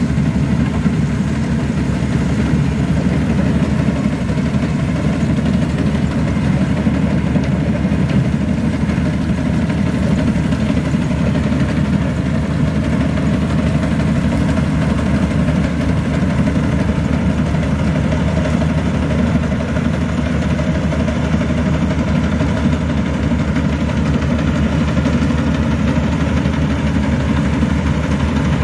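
Maxxi Bimo NDR102L combine harvester's diesel engine running steadily at an even speed, a low, unchanging drone with no rise or fall in revs.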